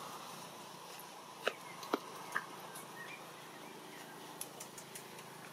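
Baby long-tailed macaque giving three short, sharp squeaks in quick succession about a second and a half in, with a couple of fainter chirps after. A few faint clicks come near the end.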